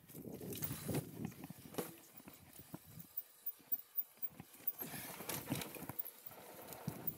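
Mountain bike riding down a rough dirt-and-rock trail: tyres running over the ground with irregular knocks and rattles as the bike hits bumps.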